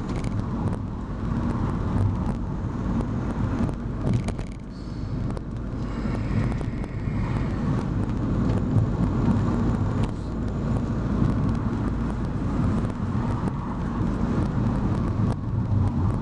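Engine and tyre noise of a moving car heard from inside the cabin: a steady low rumble that dips briefly about four seconds in.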